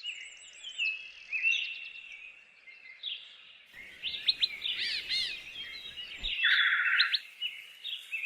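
Several birds singing and calling over one another: short chirps, whistles and sweeping notes, with a fast buzzy trill about six and a half seconds in.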